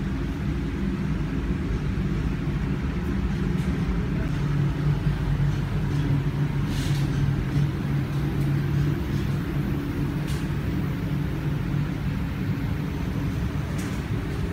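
Steady low hum of plant-room machinery (electric motors and pumps), with a few faint ticks.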